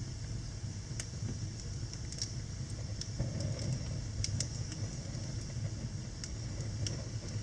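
Wood fire burning in a fireplace: a steady low rumble of flames with scattered sharp crackles and pops, about seven in a few seconds.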